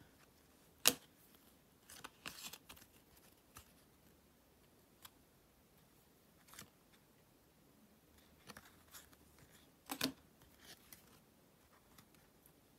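Glossy trading cards handled and shuffled by hand: scattered soft snaps and rustles of card sliding against card. The sharpest snaps come about a second in and again about ten seconds in.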